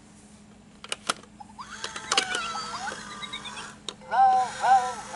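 VTech Move & Crawl Ball toy: a couple of clicks about a second in, then electronic warbling and chirping sound effects, and near the end its synthesized voice starts singing as it rolls.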